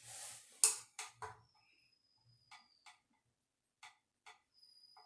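Light clicks and taps of makeup being handled, a makeup brush and eyeshadow palette, with a few sharp ones in the first second and a few fainter ticks later. A faint high steady whine comes and goes.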